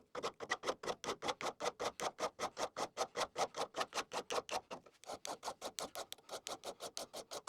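Welding arc pulsing steadily about five times a second, growing fainter in the second half, as a cut steel bracket is welded back together.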